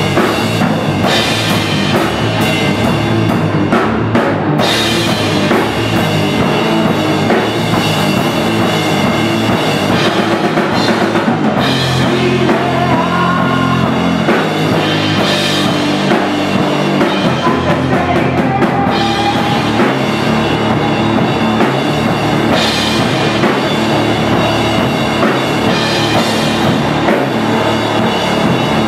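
Loud live rock from an electric guitar played through an amplifier and a drum kit played hard, bass drum and cymbals included.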